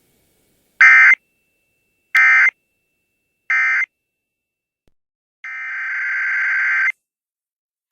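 Emergency Alert System SAME digital data tones: three short, buzzy end-of-message bursts about 1.3 s apart, closing the test. After a gap, a longer data burst swells in loudness, the start of the next alert's header.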